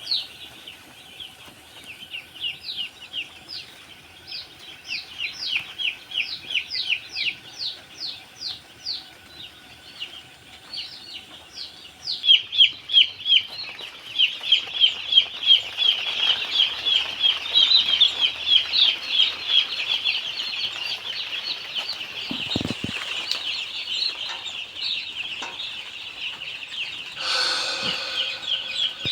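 A brood of young chicks peeping: many short, high peeps repeated rapidly, sparse at first and then a dense, louder chorus from about twelve seconds in.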